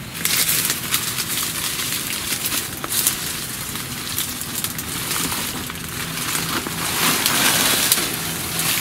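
Dry palm fronds and dead leaf litter crackling and crunching as they are pulled apart and pushed aside by hand, a dense run of sharp crackles that grows louder near the end.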